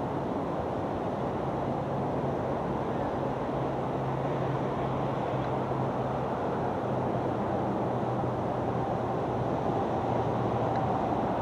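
Steady distant vehicle rumble with a low, even hum, mixed with wind noise on the microphone.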